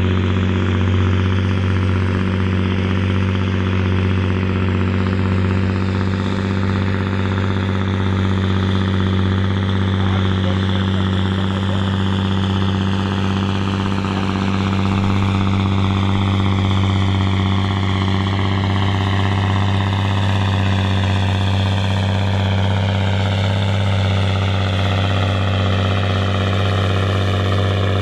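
Straight-piped John Deere 8530's six-cylinder diesel running hard at a steady pitch under full load while pulling a weight-transfer sled.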